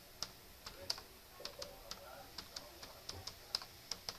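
Typing on a computer keyboard: about fifteen quick key clicks at an uneven pace as a line of text is typed.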